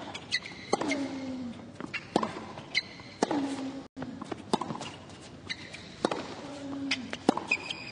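A tennis rally: a racket strikes the ball every second or less, a player grunts with a falling pitch on some of the shots, and tennis shoes squeak briefly on the hard court. The sound cuts out for an instant near the middle.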